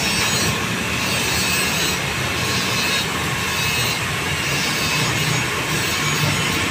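A machine running steadily, a low hum under an even hiss.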